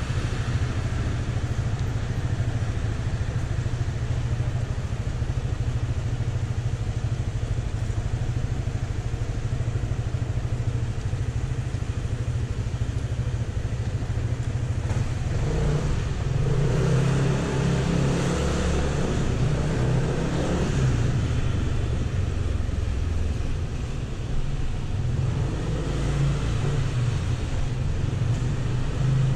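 Yamaha NMAX 155 scooter's single-cylinder engine idling steadily, then revving up and pulling away about halfway through, with a second rise in engine note near the end.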